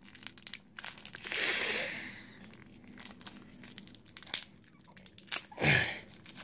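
Clear plastic packaging bag crinkling and crackling as it is opened and handled, with a louder rustle about a second in and another brief louder rustle near the end.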